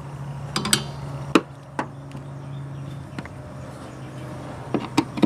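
Sharp clicks and clinks of a screwdriver and small plastic tabs and screws being worked loose by hand. One clink rings briefly less than a second in, and a few more come near the end, over a steady low hum.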